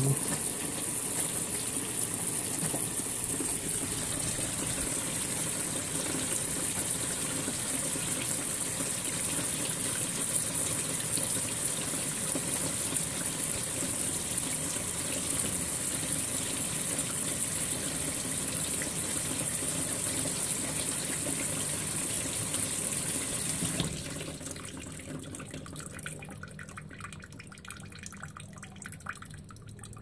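Consul 16 kg top-load washing machine topping up its water level: a steady rush of water from the inlet valve pouring into the drum. The fill cuts off suddenly near the end, leaving faint drips.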